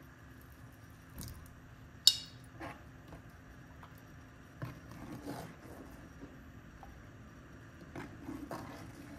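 A metal ladle clinks sharply against an enamelled cast-iron pot about two seconds in, then stirs and slops through thick blended lentil soup several times.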